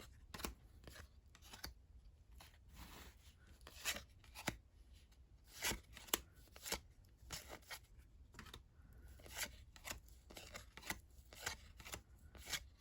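1990-91 NBA Hoops basketball trading cards being handled and flipped through one by one: a string of faint, irregular clicks and light taps as cards slide and are set down.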